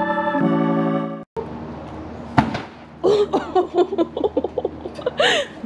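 Held organ-like keyboard chords in background music, which change once and then cut off just over a second in. After a short gap there is a single knock, then people talking.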